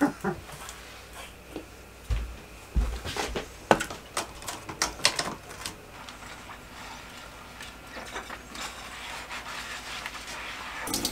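Scattered clicks and knocks of kitchen utensils and dishes being handled, with two dull low thumps a couple of seconds in. Near the end a steady rush of tap water builds.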